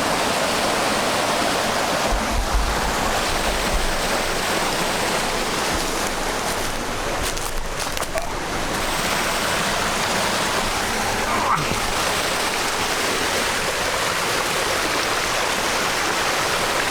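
Waterfall: steady rush of water falling and splashing over rock, with a brief low rumble about two to four seconds in.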